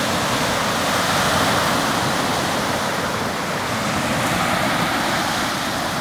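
Baltic Sea surf breaking on a sandy beach: a steady, unbroken wash of waves.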